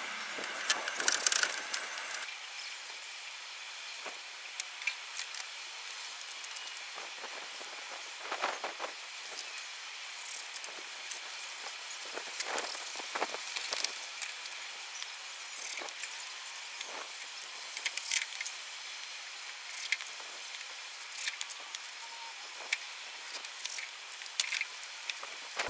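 Scattered light clicks and small knocks of hand work, irregularly spaced, over a steady background hiss.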